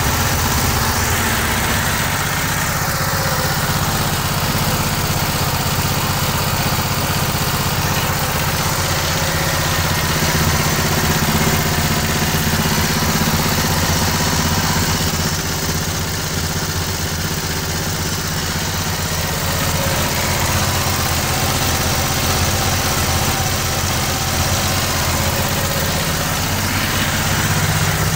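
Home-built 24-volt generator running steadily: a small gas engine belt-driving an alternator, holding an even speed.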